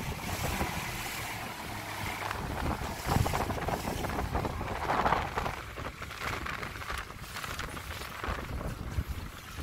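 Small motorboat under way through choppy water: engine running under a wash of water splashing against the hull, with wind buffeting the microphone. The splashing surges louder about three and five seconds in.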